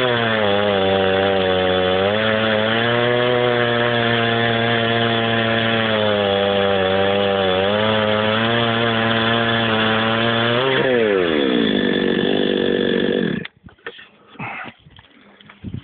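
Two-stroke chainsaw on a chainsaw mill running hard, its engine pitch wavering as it cuts. About eleven seconds in the revs fall away, and the engine stops about two seconds later.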